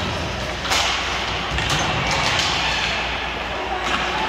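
Ice hockey play in an arena: a steady crowd murmur with sharp cracks of sticks and puck, the loudest about a second in and several more after.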